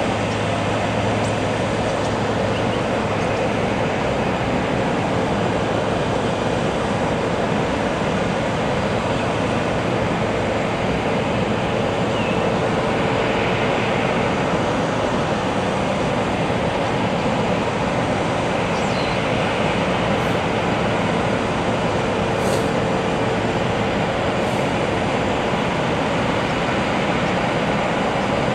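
Rolls-Royce Trent XWB turbofans of an Airbus A350 running at taxi idle: a steady rush of engine noise with a held hum.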